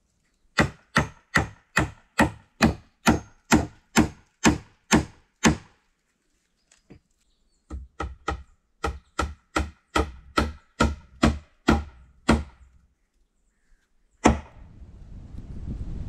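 Hammering on a wooden log railing: two runs of about a dozen even blows, a little over two a second, with a pause of about two seconds between them. Near the end comes one last blow, then wind on the microphone.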